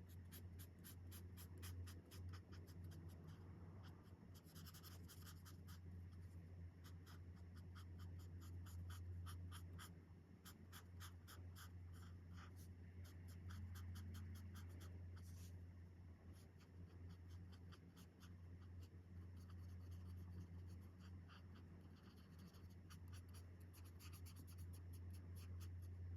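Alcohol-marker tips scratching across coloring-book paper in many quick, short strokes, faint, over a steady low hum.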